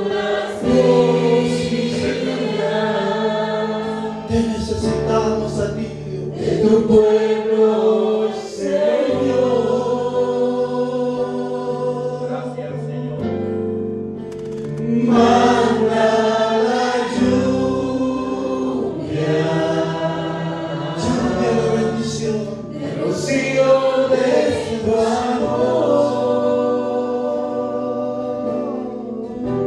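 Choir singing a slow Christian worship song over sustained low chords, in long phrases that swell and ease every few seconds.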